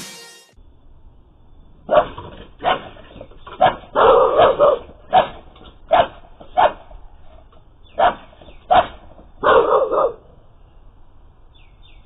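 A dog barking repeatedly at a black bear, about a dozen barks, some in quick runs, stopping about ten seconds in. Heard thin and cut off in the highs, through a security camera's microphone.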